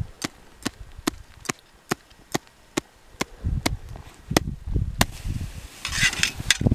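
Hand tapping on a shovel blade laid flat on an isolated snow column, about two taps a second in an even rhythm, during a snowpack column stability test. From about halfway the taps get harder, with a dull thump into the snow. A brief hiss comes about six seconds in.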